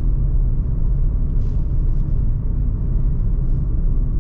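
Steady low rumble of road and engine noise inside the cabin of a Suzuki Ertiga MPV driving along at a constant speed.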